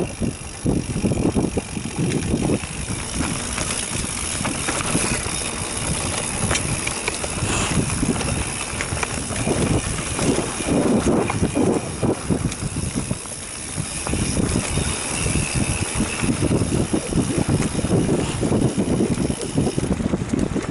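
Mountain bike riding down a dirt singletrack: tyres running over the dirt and the bike rattling over the bumps, a continuous rough noise with frequent small knocks.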